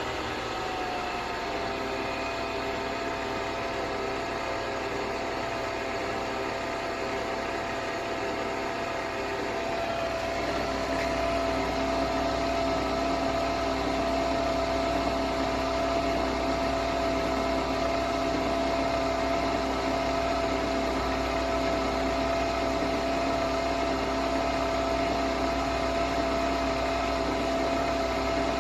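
Nespresso Vertuo Next coffee machine running through a brew cycle: a steady motor whir with several held tones. One tone drops in pitch in the first second or so, and a louder, lower hum joins about ten seconds in.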